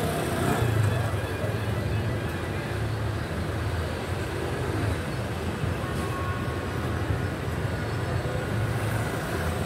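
A vehicle engine idling steadily: a continuous low hum.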